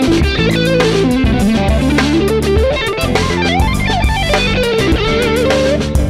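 Suhr Classic Antique electric guitar with single-coil pickups played through a Splawn Nitro amp: a lead solo of quick pentatonic runs, string bends rising into held notes, and notes held with vibrato.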